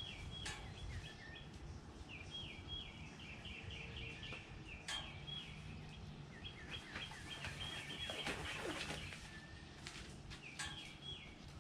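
A songbird singing repeated runs of quick, high chirps, with a few sharp clicks and light clatters scattered among them.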